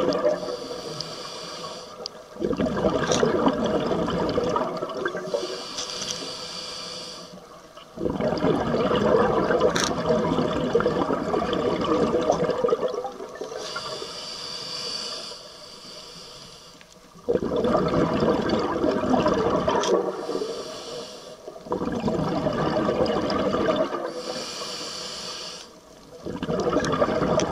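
Scuba diver breathing through a regulator underwater, in a slow repeating cycle: a hissing inhale, then a loud gush of bubbling exhaust as the breath is let out.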